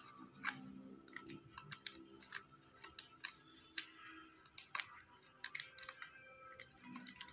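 Clear plastic humidity bag and its tie being picked at and unwrapped by fingers from a plant graft: irregular small crinkles and sharp clicks, several a second.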